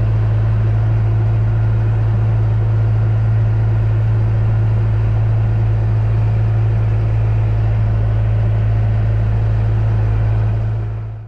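Tractor engine running at a steady speed, heard from inside the cab as a constant low hum that fades out near the end.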